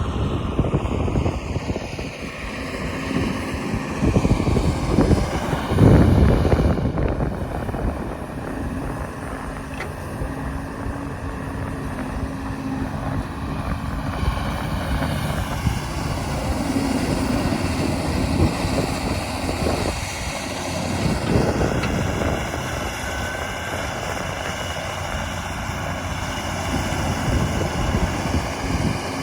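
Cat 320C hydraulic excavator's diesel engine running under working load, its drone swelling louder several times as the machine digs and swings.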